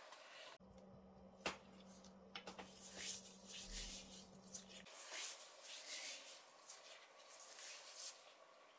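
Faint, irregular scraping and dabbing with light clicks, a steel palette knife working thick soap batter on the top of a soap bar; one sharper click comes about one and a half seconds in.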